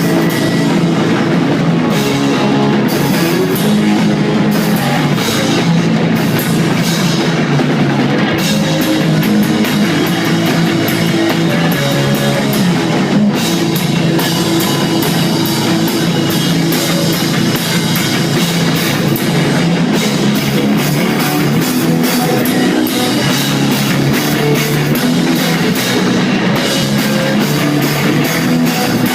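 Rock band playing live: distorted electric guitar and bass over steady, busy drum-kit playing, continuous and loud.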